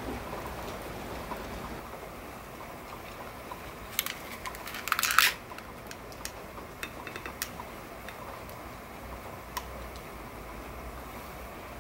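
Long-necked candle lighter clicking and crackling as it is held to a candle wick: a few sharp clicks about four seconds in, a dense crackling burst just after, then scattered single clicks.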